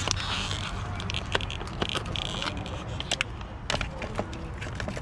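Plastic blister pack of a headlight bulb being handled and pulled open: crinkling, crackling plastic with scattered sharp clicks.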